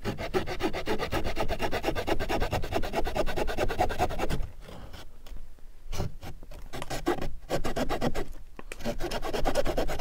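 Short pocket-knife saw blade of a Victorinox Forester cutting through a branch in quick back-and-forth strokes, a rasping sound of teeth in wood. The strokes ease off for a second or so about halfway, then pick up again.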